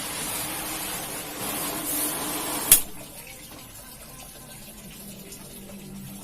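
Water spraying with a steady hiss while a carpet is being washed. It cuts off with a sharp click a little under three seconds in, leaving a much quieter water sound.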